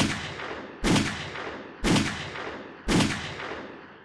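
Four pistol shots from a 9mm pocket pistol with a 3-inch barrel firing 124-grain +P rounds, about one a second. Each is a sharp crack followed by a short echo that dies away.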